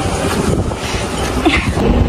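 Steady road-vehicle noise with wind rumbling on the microphone, as when filming while riding along a road. A short pitched sound cuts in about a second and a half in.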